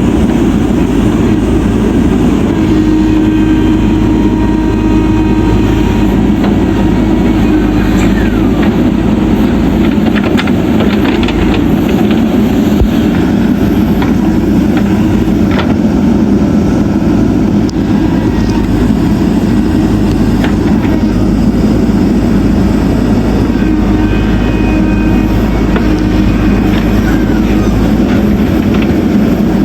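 Diesel engine of a JCB backhoe loader running steadily under load, with a few short metallic clanks.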